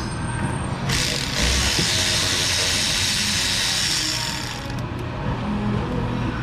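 A compressed-air blow gun hissing in one steady blast of about four seconds, starting and stopping abruptly, clearing grime from around the ignition coils.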